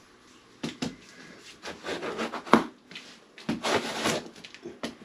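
Cardboard box being handled and opened: irregular scraping and rustling, with one sharp crack about two and a half seconds in.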